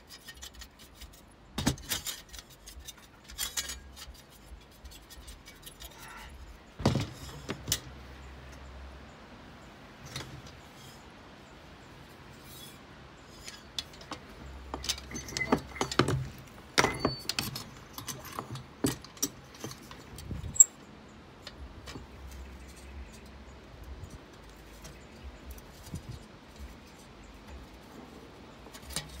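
Glass panels and brass frame of a small chandelier clinking and rattling as they are handled and taken apart, in scattered light clicks and taps.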